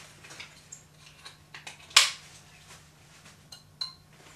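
Metal parts of a body mount camera support rig clicking and clinking as it is handled and put on, with one sharp click about two seconds in and a few small ringing clinks near the end.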